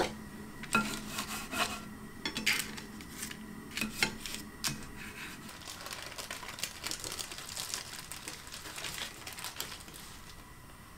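Kitchen utensil scraping and tapping against a dish during food preparation. There are several sharp clicks in the first half, then softer, quicker scraping.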